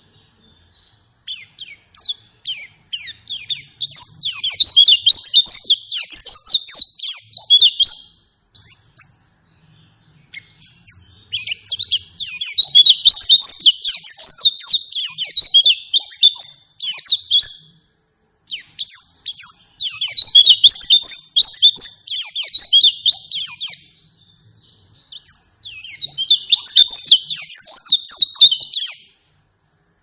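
White-eye (pleci) song: four long bouts of rapid, high twittering chirps, with short pauses between them.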